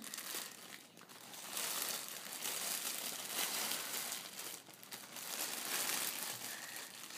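Red-and-white striped gift wrapping paper crinkling and rustling as a small child pulls at and unwraps a present, coming in waves with a brief lull about a second in.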